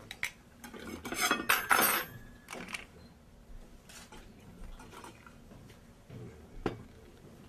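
Tableware clinking and clattering: glasses, bottles and a silver cup knocked and set down on a laden table, loudest for about a second near the start, with one sharp clink near the end.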